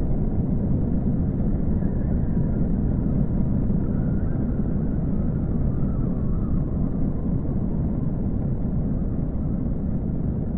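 A steady, loud low rumble, with faint wavering higher tones drifting through it for a few seconds in the middle.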